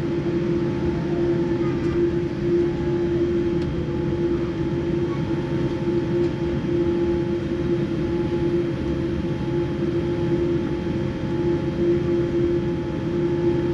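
Cabin noise inside a Boeing 787 taxiing with its engines at idle: an even rumble under a steady hum, with no rise in power.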